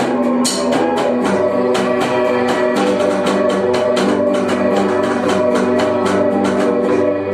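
Instrumental rock band passage: sustained guitar chords over a steady drum beat, with no singing, ending near the close.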